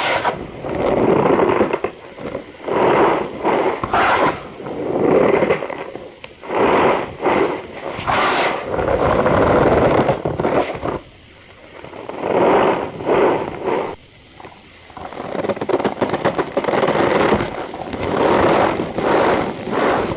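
Cornstarch powder being squeezed and pressed, giving repeated crunchy squeaks in bursts of a second or two with short pauses between them.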